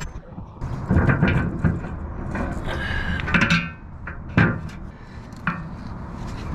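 Steel parts clanking and knocking several times, one clank about three seconds in ringing briefly, over a steady low rumble.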